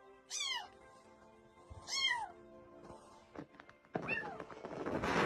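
Domestic cat meowing three times, each a short call that rises and falls in pitch, over soft background music. A rustling noise builds near the end.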